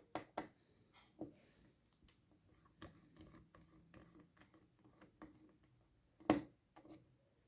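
Faint, scattered clicks and light taps of a small screw being undone from a laptop's battery, with one sharper knock a little after six seconds in.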